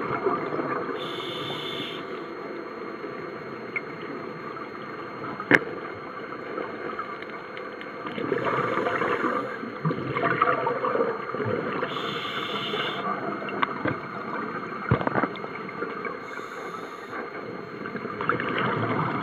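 Scuba diver's breathing heard underwater through the camera housing: four hissing regulator inhalations with bubbly gurgling exhalations between them, and two sharp clicks.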